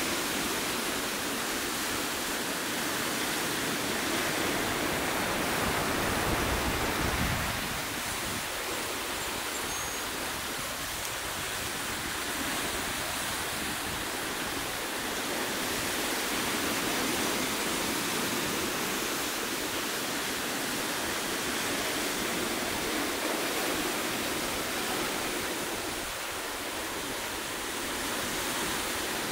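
Ocean surf breaking and washing over rock ledges, a steady rushing hiss, with a louder surge about six seconds in that drops away suddenly.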